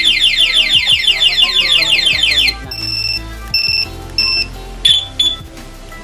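Aftermarket two-way motorcycle alarm on a Yamaha Aerox v2 scooter sounding its siren, a rapid run of repeated falling chirps set off by moving the scooter. The siren cuts off suddenly about two and a half seconds in and is followed by three short beeps.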